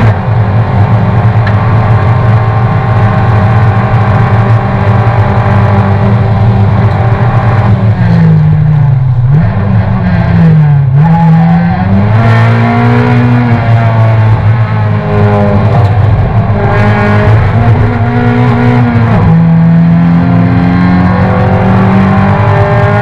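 Toyota race car's engine heard from inside the cockpit, running at high revs under racing load. About eight seconds in the revs drop sharply twice and climb back, then step up and down through several gear changes.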